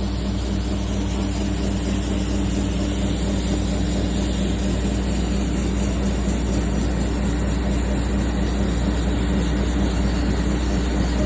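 John Deere 9670 STR combine running steadily at harvest speed while unloading wheat into a gravity wagon, a constant engine drone with a low hum.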